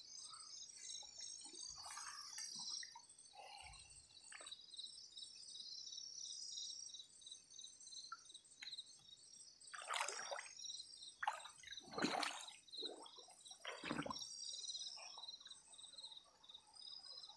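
Shallow water splashing and sloshing as hands move through it, with several louder splashes about ten, twelve and fourteen seconds in, over crickets chirping steadily.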